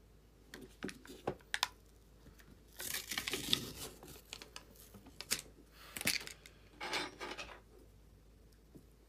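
Ice cream packaging being torn open and crinkled by hand: a few small clicks, then several short rustling bursts, the longest about three seconds in.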